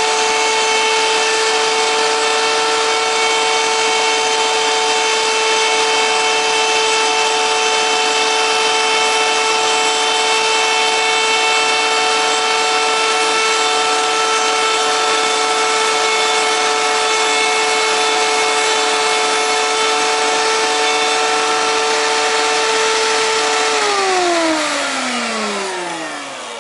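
Router-table router running at a steady high whine while its bit cuts into a wooden template blank. Near the end the router is switched off and the whine falls in pitch as the motor spins down.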